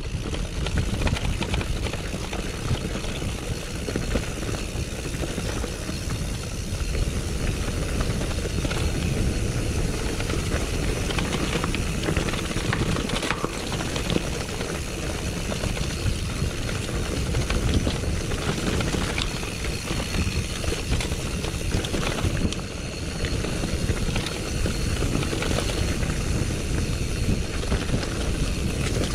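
Mountain bike riding down a gravel road: steady wind buffeting the camera microphone, with the tyres crunching on gravel and the bike rattling and clicking over the bumps.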